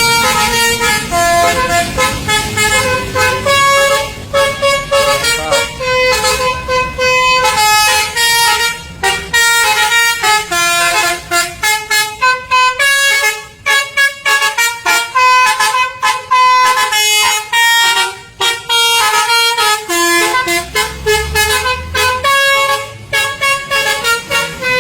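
Multi-tone telolet air horn on a bus, playing a fast tune of short stepping notes in repeated phrases without a break.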